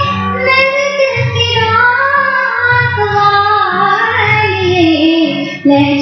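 A woman singing a Hindi film song in long, gliding held notes over a backing track with a regular low bass pulse.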